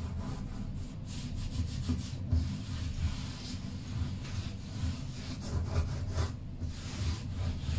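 A cloth wiping a ceramic-tiled countertop, rubbed back and forth over the tiles in uneven strokes.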